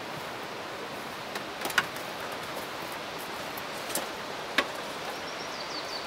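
Branches and twigs being handled, with a few sharp snaps and clicks, the loudest just under two seconds in and another about four and a half seconds in, over a steady hiss.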